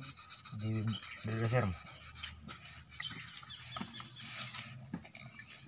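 Hand sanding of a steel hydraulic cylinder part with sandpaper to smooth off burrs: an irregular scratchy rubbing. Two short voice sounds come about a second in.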